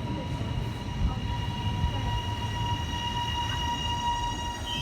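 Melbourne Metro electric suburban train braking into a station: a low rumble of wheels on rail under a steady, high-pitched squeal made of several held tones.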